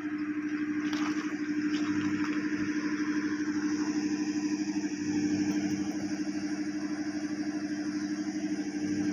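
A boat's engine running steadily: an even drone with a fast, regular pulse.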